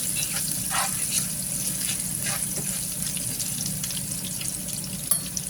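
Garlic sizzling steadily in hot oil in a frying pan as it is stirred, with a few short scrapes.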